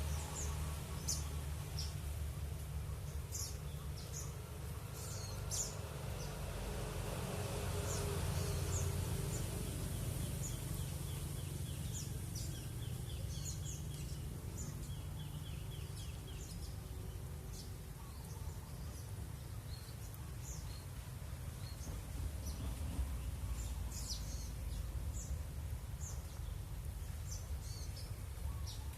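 Several small wild birds chirping, with many short, high calls overlapping throughout and a quick trill partway through. A steady low rumble runs underneath.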